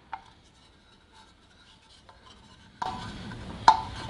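Steel oil pickup tube being screwed by hand into the threaded hole in a big-block engine block: faint metal-on-metal rubbing and scraping, with one sharp metal clink near the end.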